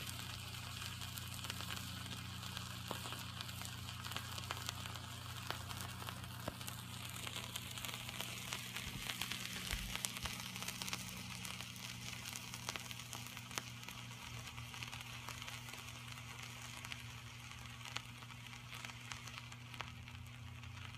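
Homemade thermite of aluminum powder, sulfur and silicon dioxide burning in a small can: a steady sizzling hiss with many small crackles, easing slightly near the end.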